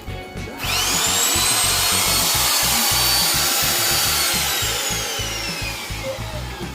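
Bosch GKF 550 palm router (trim router) motor switched on, whining up quickly to full speed, running steadily, then switched off and slowly spinning down with a falling whine. Background music with a steady beat plays underneath.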